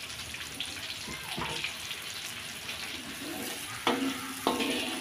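Blended spice paste sizzling and crackling in hot oil in a wok. Near the end a metal spatula scrapes across the wok twice as the paste is stirred.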